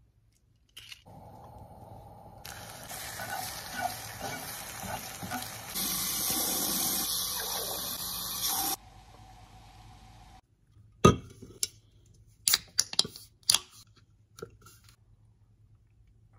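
Kitchen tap water running into a plastic shaker cup for about eight seconds, getting louder partway through and shutting off suddenly. Later, one loud sharp click and a few smaller clicks from an aluminium drink can being handled on a stone countertop.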